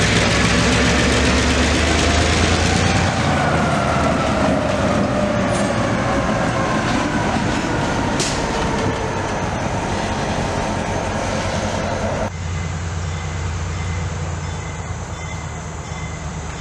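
Diesel locomotives, an EMD MP15DC switcher with an SD40-2 trailing, running past close by: a loud engine rumble and rail noise, with faint falling squeals from the wheels. About twelve seconds in, the sound changes abruptly to a quieter, steady low diesel hum.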